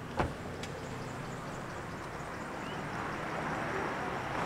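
A car passing on the street, its engine and tyre noise swelling over the last second or so. A single sharp click comes just after the start.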